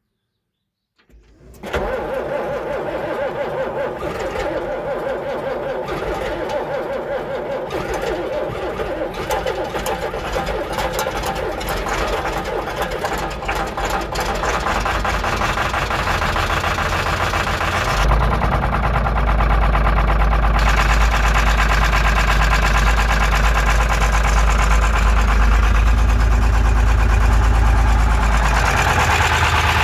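John Deere tractor's diesel engine cold-starting about a second in, then running. From about 18 seconds in its note turns deeper and louder.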